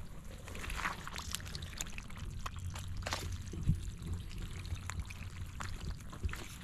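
Slow, careful footsteps across wet, muddy marsh ground, boots squelching in the mud and crackling through low plants and dry stems in scattered, irregular clicks.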